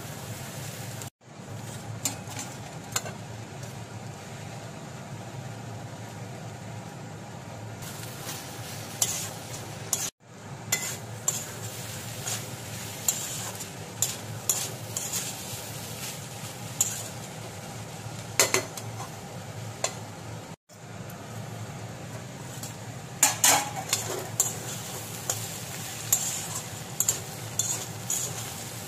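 Metal spatula scraping and turning cauliflower and potatoes in a metal kadai as they dry-fry and sizzle: irregular scrapes and clinks over a steady hiss and low hum, busiest in bursts near the middle and toward the end.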